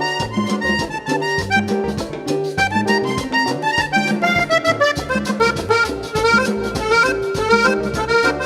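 Instrumental passage of Panamanian música típica: a diatonic accordion plays quick stepping melodic runs over a repeating bass line and a steady beat of hand percussion.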